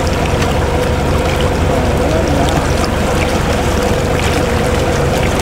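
A fishing boat's engine running steadily with a constant hum, under the wash of water rushing and splashing along the hull.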